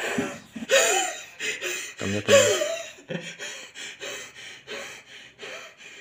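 A man laughing: two loud bursts in the first half, then a run of shorter, softer laughs that taper off.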